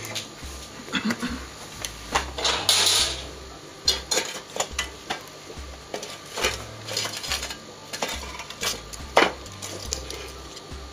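Steel frying pan clanking and scraping as it is set down on the metal grate of a wood-fired stove, loudest about two to three seconds in. Sharp clicks and pops from the burning firewood continue throughout.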